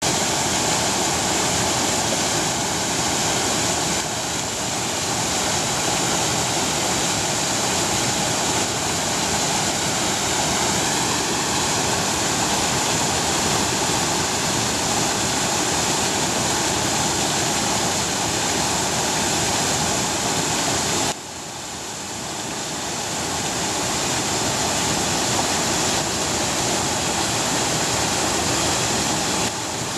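Small waterfall on a forest stream: water rushing steadily over rock ledges. It drops suddenly in loudness about two-thirds of the way through, then slowly builds again.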